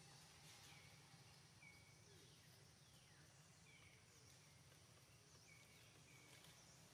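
Near silence: faint outdoor ambience with faint, short, high chirps, some falling in pitch, repeating roughly once a second.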